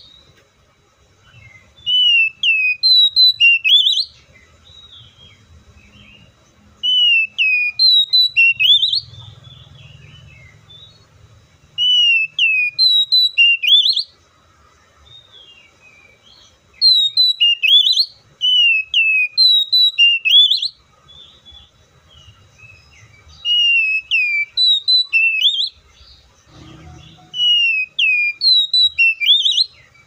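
Male Oriental magpie-robin singing: six loud bursts of rapidly repeated clear whistled notes, each note a falling then rising sweep, with short pauses between bursts.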